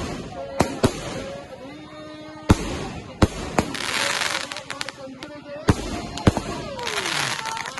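25-shot consumer firework cake firing: about eight sharp bangs of shells bursting overhead, with crackling after the bursts about four seconds in and again near the end.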